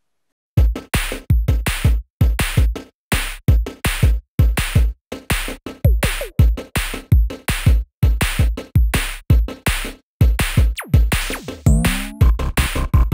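Electronic background music with a punchy drum-machine beat and deep bass, starting about half a second in.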